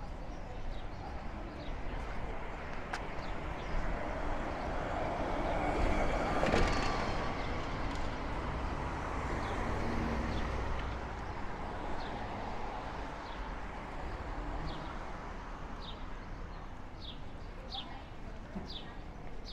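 City street traffic going by: a steady hum of cars that swells as a vehicle passes about six or seven seconds in, then eases off. Short, high bird chirps come near the end.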